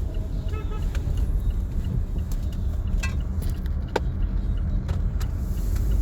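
Car driving with a window open, heard from inside the cabin: a steady low rumble of road and wind noise, with a few brief sharp sounds from outside.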